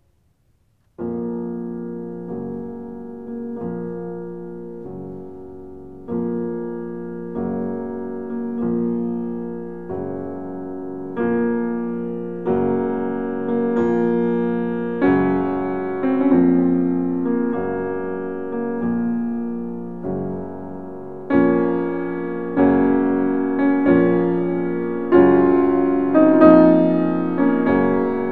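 Background music: slow, gentle piano, starting about a second in after a brief silence, with a new chord struck every second or so.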